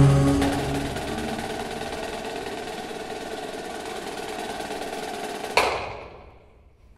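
Marching percussion ensemble: a marimba chord dies away as the snare drums hold a sustained roll, which ends in one loud accented hit about five and a half seconds in that rings and fades out.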